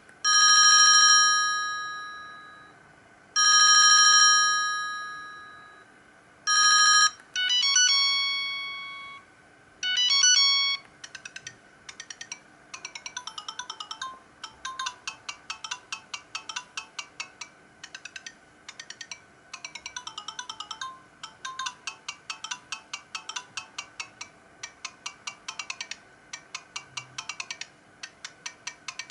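Siemens CL50 mobile phone ringtones playing. First come a few long, slowly fading bell-like chime notes. From about a third of the way in, a fast tune of short beeping notes follows.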